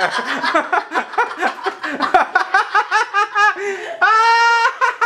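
A man laughing: a quick run of ha-ha pulses, then a long high-pitched laugh about four seconds in.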